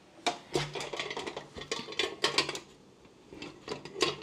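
Plastic housing of a Ninja Crispi air fryer's Power Pod clicking and knocking against a glass container as it is pressed down and shifted into place on top. A string of light clicks and taps comes in small clusters.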